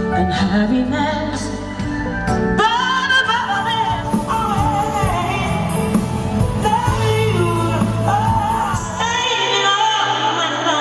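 A woman singing live with band accompaniment, her voice running up and down in long sung lines. There are abrupt jumps to another recording, one about a second in and one near the end.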